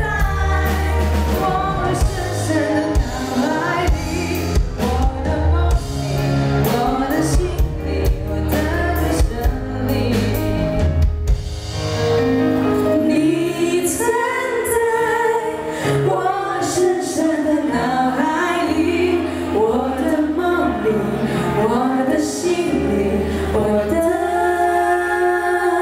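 Two women singing a pop song live into microphones over amplified backing music with bass and drums; the drum beat drops out about halfway through while the bass and voices carry on.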